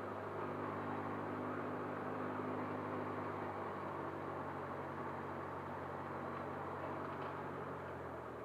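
Cessna 152's four-cylinder Lycoming O-235 engine idling, heard from inside the cockpit as a steady low hum. Near the end the hum dies away and the sound grows quieter.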